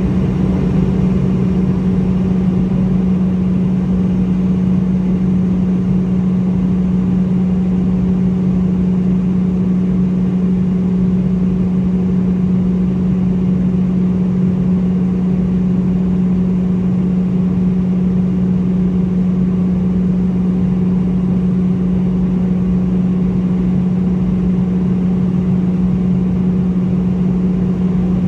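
Boeing 717-200's rear-mounted Rolls-Royce BR715 turbofan heard from inside the cabin right beside the engine in flight: a steady, loud drone with a strong low hum over a rush of air, unchanging throughout.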